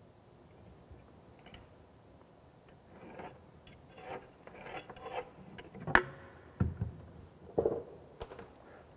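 Scraping and rubbing of a spirit level and pencil against a wallboard as a line for a water pipe is marked out, starting about three seconds in, with one sharp click about six seconds in and a couple of dull knocks after it.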